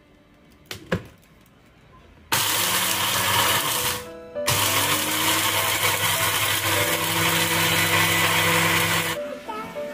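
Electric blender motor running in two spells, from about two seconds in and again from about halfway to near the end, with a short break between, grinding eggshells to powder. A single click comes about a second in as the jar is pressed onto the base.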